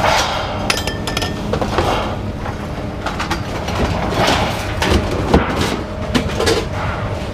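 Metal clanking and knocking, irregularly, over a steady low rumble, with a short ringing metallic tone about a second in.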